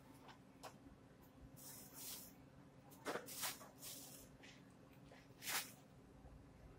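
Faint handling noises, a few short rustles and clicks, over a low steady hum.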